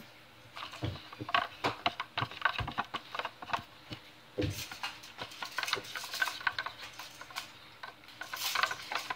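A red plastic cup being handled and its contents stirred with the fingers: scattered soft clicks, taps and rustles, with one dull knock a little before halfway.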